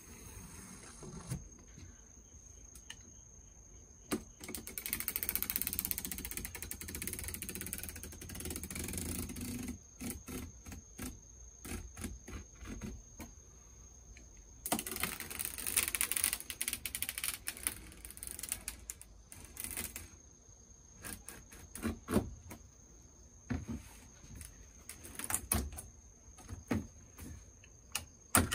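Utility knife scoring a twinwall polycarbonate sheet: two long scraping strokes, then a run of short sharp clicks and taps.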